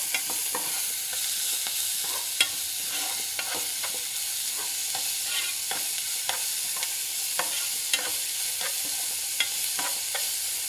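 Chopped onions and green capsicum sizzling steadily in hot oil in a pan while being stirred, the utensil clicking and scraping against the pan at irregular moments.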